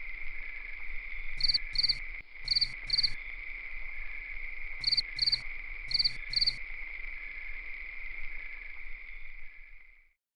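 Crickets: a steady high trill with louder chirps that come in quick pairs, four pairs in all, fading out near the end.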